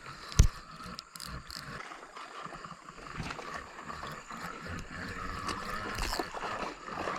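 Creek water moving and gurgling, with a single sharp knock about half a second in.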